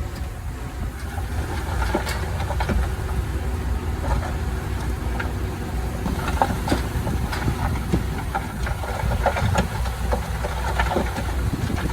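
Engine of heavy land-clearing machinery running steadily, with scattered clanks and knocks.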